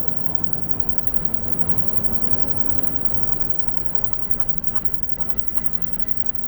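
Steady street noise of a busy city: a low rumble of traffic. A few faint high-pitched pulsing tones sound in the middle, with a couple of short clicks about four and a half to five seconds in.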